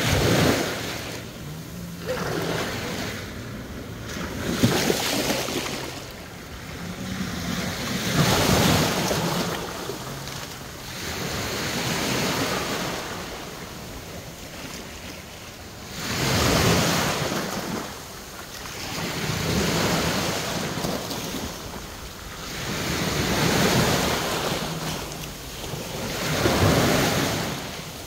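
Small sea waves breaking and washing over rocks and sand, each surge swelling and fading away about every three to four seconds.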